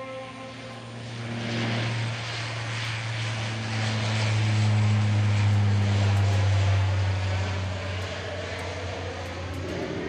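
Twin-turboprop airliner taking off: a steady low propeller drone under a rush of engine noise, swelling to its loudest about halfway through and then easing as the plane climbs away.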